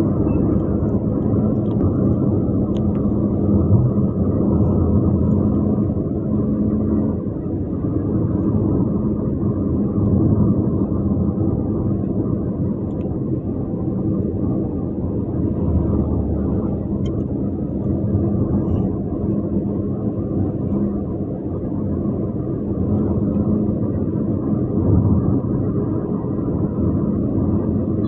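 Steady rumble of a vehicle under way: engine drone and road noise, with a faint steady engine hum that fades after several seconds and returns later.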